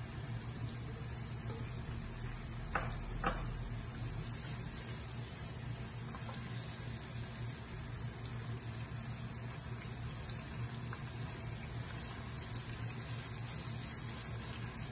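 Sliced onions sizzling steadily in hot oil in a nonstick pot, frying toward golden brown as they are stirred with a silicone spatula. Two light knocks about three seconds in.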